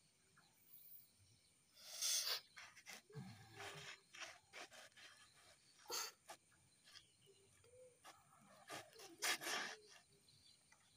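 A man's heavy, noisy breaths: several sharp exhalations at irregular intervals, the loudest about two seconds in and again near nine seconds.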